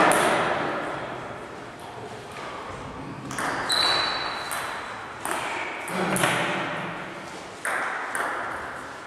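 Table tennis ball clicking off the bats and the table during a rally, several sharp hits at uneven intervals, each ringing on in the echo of a large gym hall.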